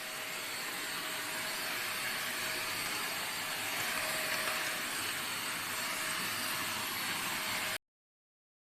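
Deerma DX115C handheld vacuum cleaner running steadily: an even rushing hiss of air with a faint steady whine. It cuts off abruptly near the end.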